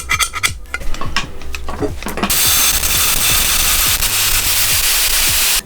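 Small metal clicks and knocks of parts being handled, then about two and a half seconds in a steady, loud, hissing cutting noise that starts and stops abruptly: a small plate being cut for the wand's repair.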